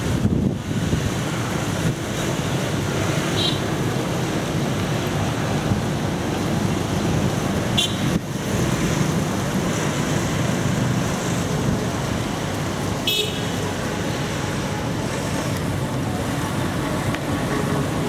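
Steady street traffic of cars and motorbikes, with three brief horn beeps about three, eight and thirteen seconds in.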